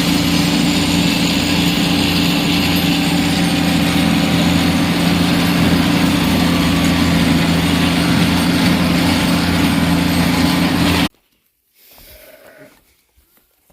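Tractor engine running steadily at constant speed, which cuts off abruptly about eleven seconds in and is followed by near quiet.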